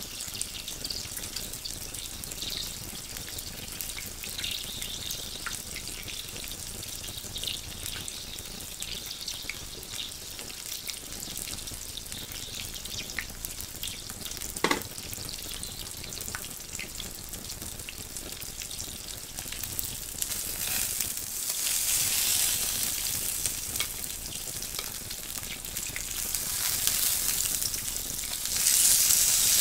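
Pork belly sizzling in fat on an electric grill pan: a steady frying hiss that grows louder about twenty seconds in and again near the end. One sharp click about halfway through.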